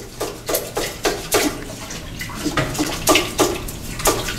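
Cotton or nylon toilet bowl swab plunged up and down in a toilet bowl, the water splashing and sloshing with each stroke, roughly three strokes a second, as it is forced out past the trap to empty the bowl.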